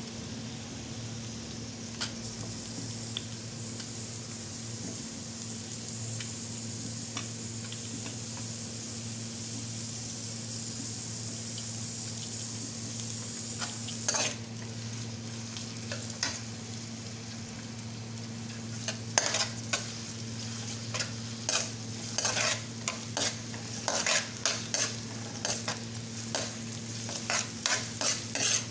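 Sliced onions and garlic sizzling as they sauté in a frying pan, over a steady low hum. In the second half, a metal spoon scrapes and clicks against the pan again and again as they are stirred.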